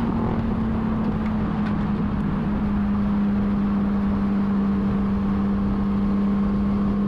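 Motorcycle engine running at a steady cruising speed with wind and road rush; its steady note drops slightly about two and a half seconds in.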